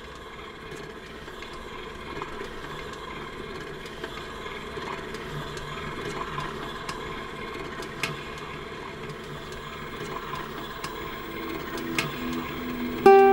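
Steady background hiss with a few faint clicks, slowly growing louder; plucked-string music starts just before the end.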